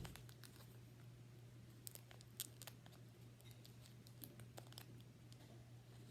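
Faint, scattered clicks and light rustles of a plastic blind bag being handled and picked at to open it, over a low steady hum.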